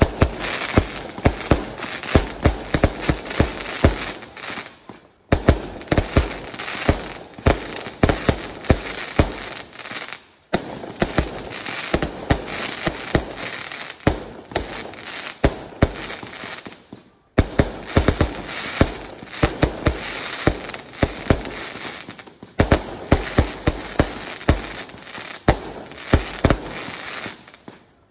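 A 6-inch 398-shot cake firework firing: a fast run of sharp launch bangs and crackling bursts, several a second, breaking off briefly four times.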